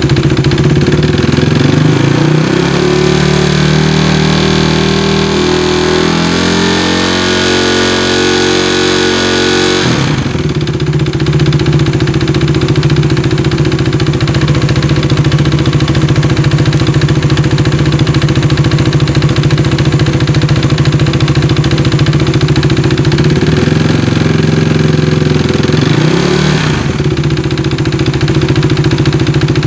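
Motorcycle engine running at idle while it warms up. It revs up in steps for several seconds before dropping back to idle about ten seconds in, and a brief throttle blip rises and falls near the end.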